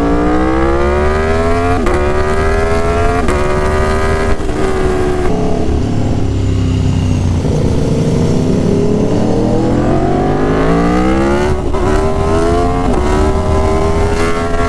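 Aprilia Tuono Factory motorcycle engine through an SC Project S1 exhaust, accelerating hard at wide open throttle: the pitch climbs and drops with each of three quick upshifts, falls away as the throttle is rolled off, then climbs again through two more upshifts.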